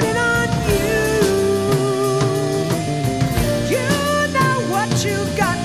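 Rock music with guitar and drums.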